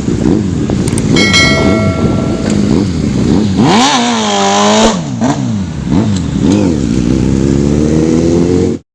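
Freshly rebuilt Yamaha FZ750 inline-four motorcycle engine being revved in repeated short blips, with one longer rev in the middle and a slow climb in revs near the end. The sound cuts off suddenly just before the end.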